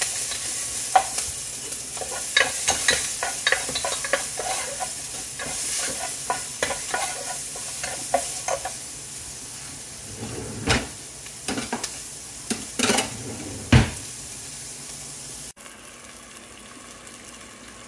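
Onion frying and sizzling in a pot while a silicone spatula stirs and scrapes the bottom, in many short strokes with two louder knocks in the second half. After a cut near the end, only a quieter steady sizzle remains.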